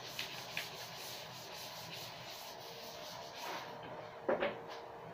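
A chalkboard duster is rubbed over the board in scraping strokes that stop about three and a half seconds in. A sharp double knock follows near the end.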